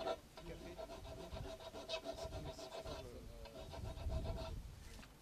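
Angle grinder running with a steady whine as it cuts into wood, stopping about four and a half seconds in.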